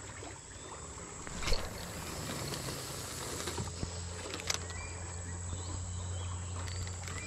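Riverbank ambience with two sharp clicks from a spinning reel being handled, one about a second and a half in and another about four and a half seconds in. From about three and a half seconds in a low steady hum sets in, with faint short chirps over it.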